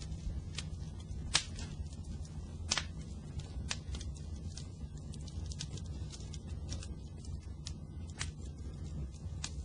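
Fire crackling: irregular sharp pops and snaps over a steady low rushing burn, with a couple of louder pops about a second and a half and nearly three seconds in.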